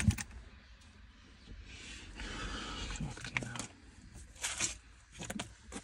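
Faint hands-on work noises under the van's dashboard: a soft scrape about two seconds in, then a few light clicks, over a low background hum.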